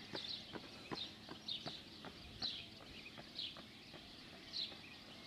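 Small birds chirping, short calls repeating about once a second, over light irregular taps a few times a second.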